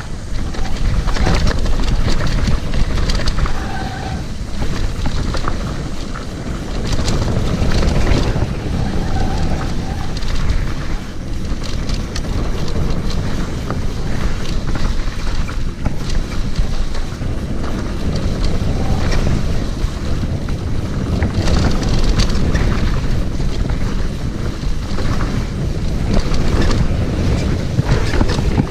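Wind rushing over the microphone together with the continuous clatter and knocking of a mountain bike riding fast down a rough trail.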